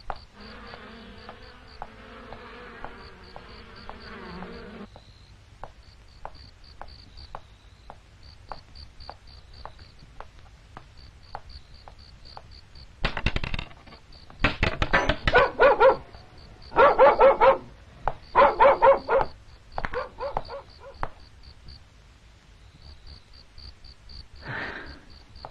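A dog barks in a run of loud barks through the middle, over the steady pulsing chirps of night insects. Light, evenly spaced footsteps tick in the background.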